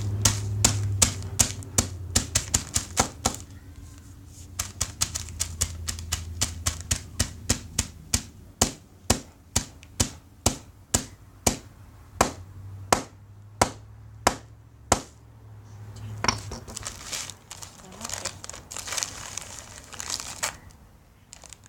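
A long run of sharp hammer blows, a few a second, on a bag of crushed Takis chips on a hard surface, thinning out about four seconds in and stopping after about sixteen seconds. A crinkling of the chip bag follows near the end.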